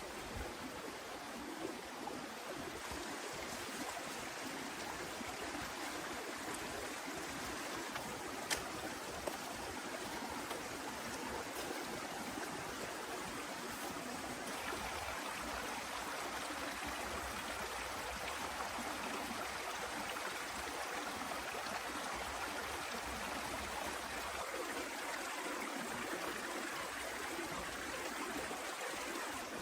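Heavy rain falling steadily, an even rushing hiss of water. A single sharp click about eight seconds in.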